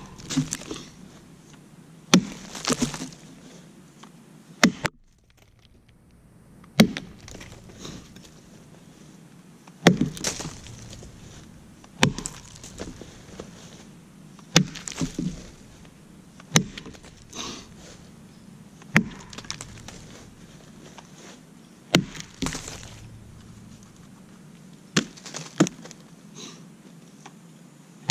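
Double-bit axe chopping into a very dead, dry oak log: a dozen or so sharp strikes, roughly two seconds apart, each with a short rattle after it.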